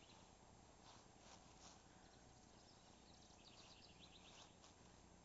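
Near silence, with a few faint high clicks about a second in and a faint run of chirping ticks later on.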